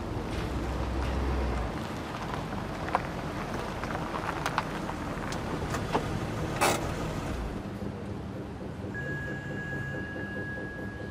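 Nissan Qashqai engine running low as the car pulls up and stops. The rumble dies away about seven seconds in, with a few sharp clicks and a short rustling burst along the way. A steady high tone sets in near the end.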